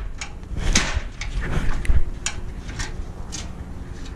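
A bent engine undertray plate being stepped on and pressed flat: a string of knocks, creaks and low thuds, the loudest about two seconds in.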